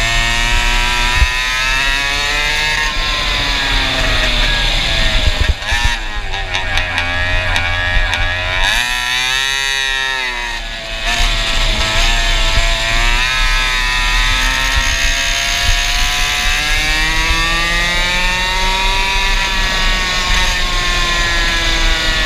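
Go-kart engine with a stinger exhaust, heard from onboard while lapping, its pitch rising and falling with the throttle. About halfway through it drops off briefly as the throttle is lifted, then climbs again under acceleration.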